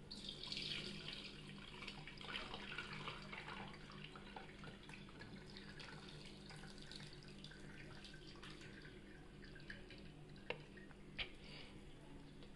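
Curdled milk poured into a cloth-lined sieve, the whey splashing and trickling through into a bowl below. The pour is heaviest in the first few seconds, then thins to dribbling and dripping, with two light clicks near the end.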